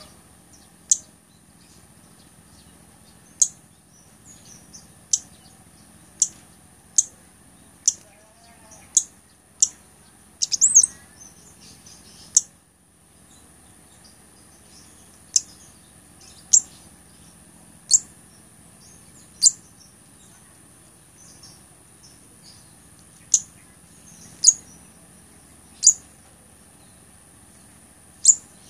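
Cabai gunung (blood-breasted flowerpecker) giving thin, sharp, high chip notes. Each note is a quick falling tick, coming singly every one to two seconds, with a rapid cluster of several about ten seconds in. A steady faint high hiss lies underneath.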